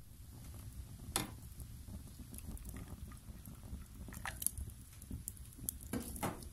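Wood fire crackling in a fireplace: scattered pops and snaps, the loudest about a second in and again near the end, over a low steady rumble.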